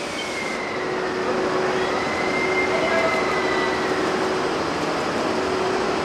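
EF81 electric locomotive rolling slowly along the platform: a steady running hum with faint, drawn-out squeals from the wheels on the rails.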